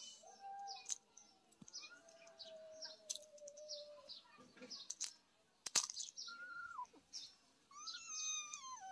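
Small birds chirping throughout in short, high, falling notes, with a few sharp clicks. Near the end comes a high, pitched mew that falls away, from the kitten.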